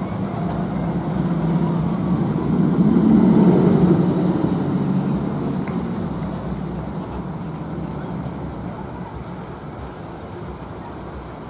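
Steel hyper coaster train on a test run, rumbling along the track. It grows louder to a peak about three seconds in, then slowly fades as it passes.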